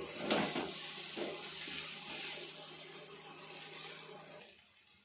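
Dosa sizzling on a hot tawa, with a sharp knock of a utensil just after the start; the sizzle fades away near the end.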